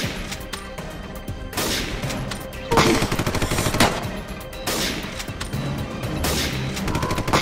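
Gunfire sound effects: rapid bursts of shots with several louder single shots about a second apart, over background music.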